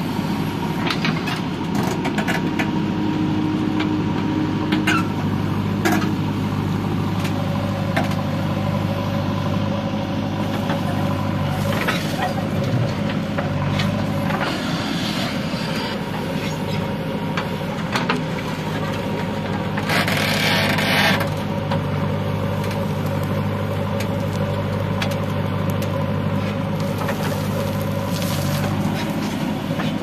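Diesel engine of a JCB 3DX backhoe loader running steadily at work, with scattered knocks and a brief hissing burst about two-thirds of the way through.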